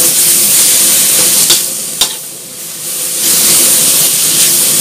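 Sliced garlic stems stir-frying in lard in a wok, a steady sizzle as a metal spatula tosses them. Two sharp knocks come about a second and a half and two seconds in, after which the sizzle drops away for about a second and then returns.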